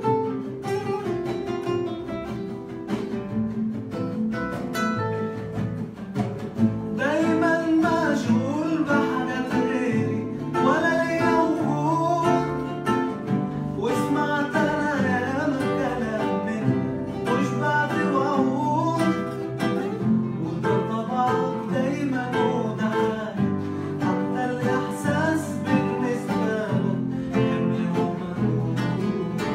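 Several acoustic guitars playing a song together, joined by a man's voice singing the melody from about seven seconds in.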